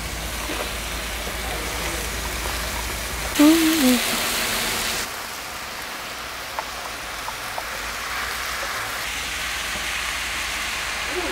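Diced sweet potatoes sizzling in a cast iron skillet, a steady frying hiss that swells louder for a second or so about three and a half seconds in.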